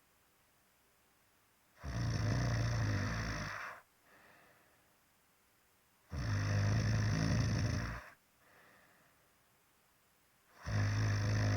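Loud, regular snoring: three long snores about four seconds apart, each lasting roughly two seconds, with a faint breath out after the first two. The third snore is still going at the end.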